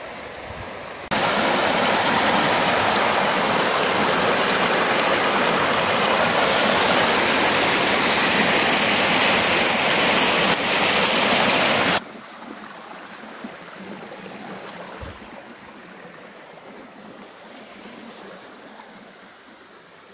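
Shallow, rocky stream rushing over small rapids close by, a loud, steady rush of water. It cuts in suddenly about a second in and cuts off suddenly near the middle, leaving only a much fainter hiss of water that slowly fades.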